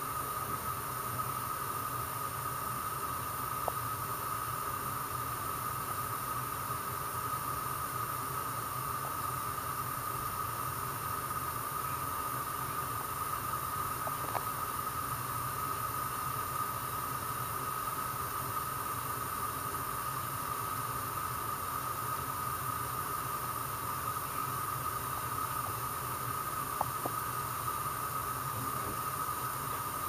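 Water boiling in a pot: a steady hiss with a few faint ticks.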